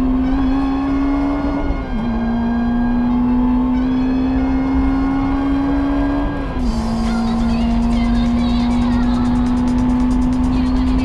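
Honda Integra DC5 race car's four-cylinder engine at high revs, heard from inside the cabin, pulling hard down a straight. Its note climbs steadily and drops with an upshift twice, about two seconds in and again about six and a half seconds in. Road and wind noise rises in the last few seconds.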